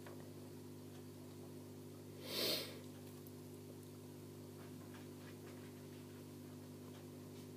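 A steady low hum, with one short sniff or breath close to the microphone about two and a half seconds in.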